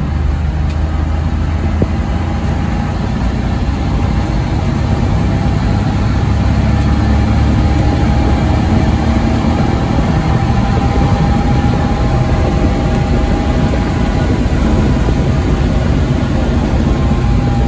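1940 Chevrolet 1½-ton truck's inline-six engine running steadily under way, heard from inside the cab along with road noise, a little louder after the first few seconds.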